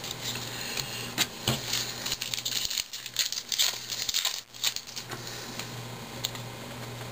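Foil wrapper of a baseball card pack being torn open and crinkled by hand: a run of crackling rustles with a few sharp clicks for the first few seconds, then quieter handling.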